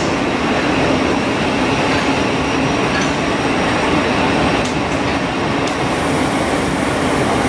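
Thameslink Class 700 electric multiple unit moving along the platform, a steady, unbroken running noise of its wheels on the rails and its traction equipment.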